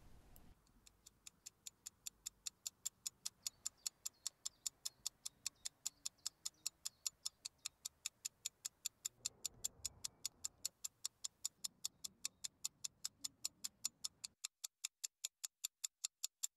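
Steady clock ticking, fast and even at about four ticks a second, fading in over the first couple of seconds.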